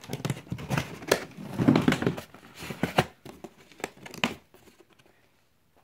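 A packaging box being opened by hand: a string of crinkling, tearing and rustling sounds with sharp clicks, which stop about four and a half seconds in.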